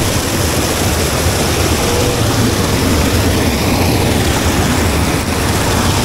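River water rushing and churning close to the microphone: a steady, loud rush, heaviest in the low end.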